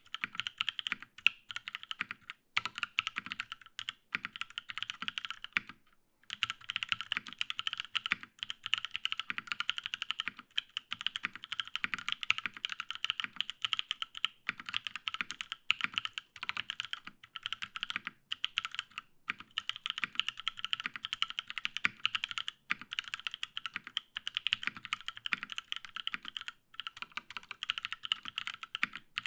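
Typing on a Matrix 8X V2.2 mechanical keyboard with lubed Paco switches, an aluminium plate and GMK keycaps: a steady run of quick key clacks, with a brief pause about six seconds in.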